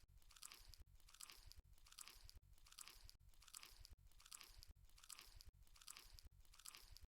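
Faint, close-miked chewing of a mouthful of food, in an even rhythm of about one chew every 0.8 seconds.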